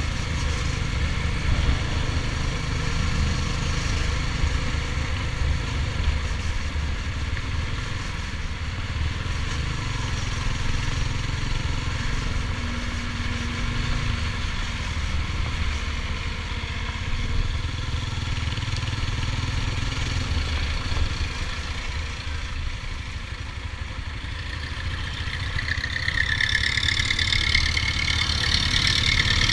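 Stallion Centaur 250 Max motorcycle engine running steadily at low road speed. A hissing rush builds and grows louder near the end.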